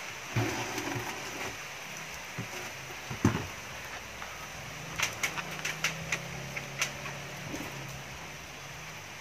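Cordless drill driving screws into a speaker cabinet's plastic corner protectors. It runs in short low-speed spells, first about half a second in and again in the second half. Hard plastic corner pieces give a knock and a run of sharp clicks as they are handled and set against the cabinet.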